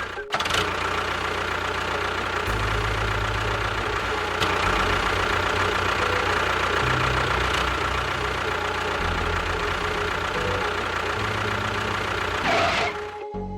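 Small motor of a miniature DIY construction machine running steadily. Its low hum changes pitch in several abrupt steps, as the footage cuts from shot to shot.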